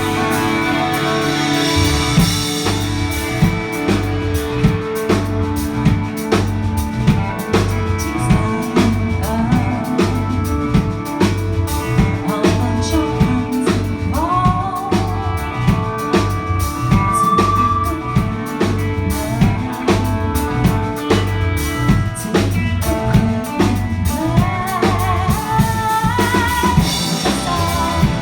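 A band playing live: a drum kit comes in with a steady beat about two seconds in, under sustained guitar chords and a low bass line.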